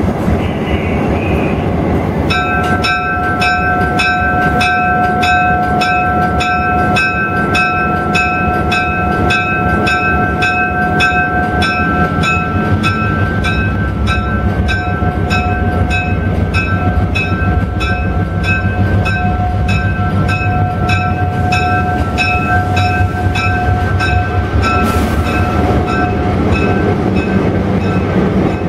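Diesel locomotive pulling slowly into the station, its bell ringing steadily at about two strokes a second from a couple of seconds in, over the low rumble of the engine and the wheels on the rails.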